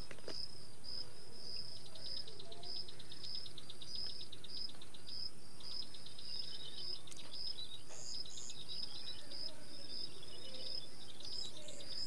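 Outdoor ambience of insects chirping: a high chirp repeats about twice a second over faster trilling, with a few higher bird-like chirps near the middle and end.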